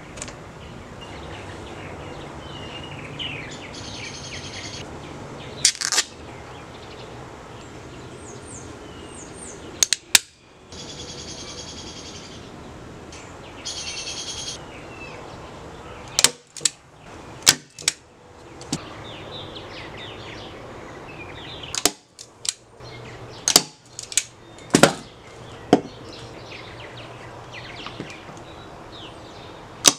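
Sharp single shots of a nailer fixing the 8 mm plywood panels of a small drawer box, a few spread out and then several close together in the second half. Birds chirp in the background.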